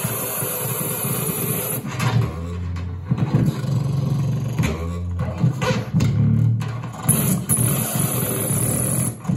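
Live harsh-noise electronics run through a small mixer and effects pedals: a dense, steady hissing wash for about two seconds, then low, stuttering drones broken by several abrupt cut-outs, with the high hiss returning near the end.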